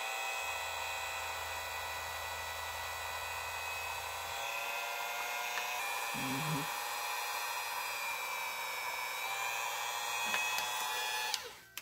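Dremel rotary tool running at a steady speed with a high whine, its small bit slowly cutting into the soft plastic ankle of an action figure. The tool stops shortly before the end.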